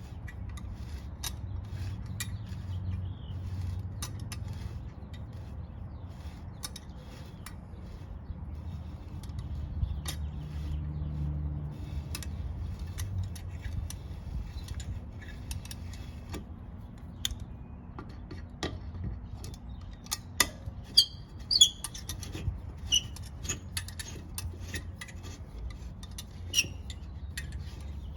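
Vise grips clamped on a one-way storm door screw head, turning it out slowly: scattered small metal clicks and ticks over a steady low hum, with a cluster of sharper clicks and a few brief high chirps about twenty seconds in.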